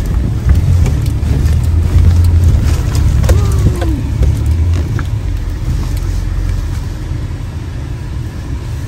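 Four-wheel drive's engine rumbling under load, heard from inside the cabin as it drives up a soft sand dune track, with knocks and rattles from the rough ride. The rumble eases off gradually over the last few seconds.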